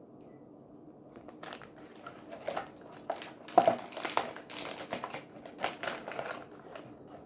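Irregular crinkling and crackling of a Hello Panda biscuit box's packaging being handled. It starts after a quiet second or so, with the loudest crackle a little past the middle.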